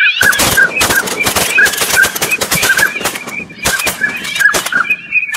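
A flock of waterfowl calling, short honking calls repeated several times a second, overlaid by a dense, irregular run of loud sharp cracks and rustles close to the microphone.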